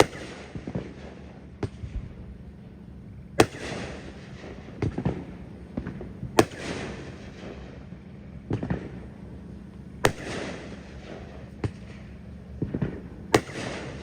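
T-Sky "One Minute Riot" 500-gram firework cake firing a steady string of shots. A loud, sharp burst comes about every three seconds, five in all, each trailing off over a second or two, with smaller pops in between.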